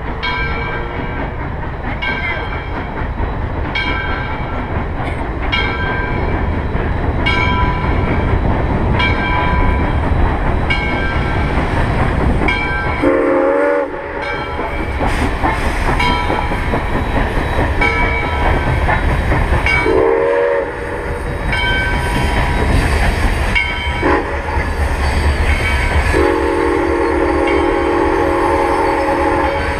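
Southern Railway 630, a 2-8-0 steam locomotive, passing with a steady low rumble while its bell rings about once a second through the first half. Its steam whistle sounds two blasts of about a second each, a brief toot, and then a long blast of about three seconds near the end.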